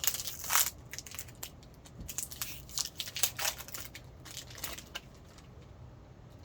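A baseball card pack's wrapper being torn open and crinkled by hand: a quick run of sharp crackles and rips that dies down after about five seconds.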